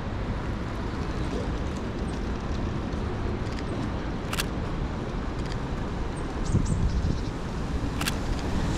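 City street ambience: a steady low rumble of road traffic, with two sharp clicks about four seconds apart.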